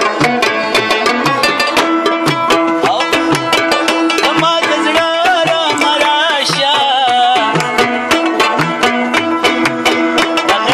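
Pashto folk music: a rabab plucking a melody over a steady, quick rhythm beaten on a mangay pot drum. A voice sings a wavering tapay line around the middle.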